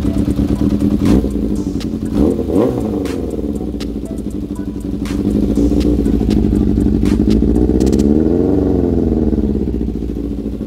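Yamaha XJR400's air-cooled inline-four engine idling, blipped briefly about two seconds in, then revved up and let fall back to idle near the end. The owner puts its poor running down to a worn carburetor set, with the number 4 carb running far too lean and no longer tunable.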